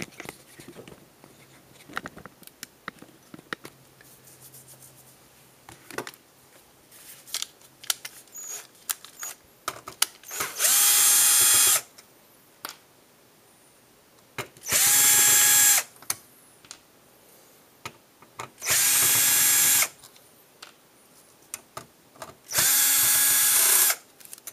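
Cordless drill-driver running in four short bursts of about a second each, a few seconds apart, backing out the screws that hold an LCD monitor's power supply board. Light clicks and the handling of small parts come between the bursts.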